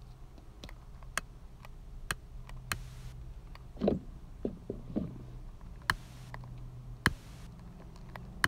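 A lighter clicked over and over: about eight sharp, irregularly spaced clicks, three of them followed by a brief hiss, with a few duller handling sounds around the middle.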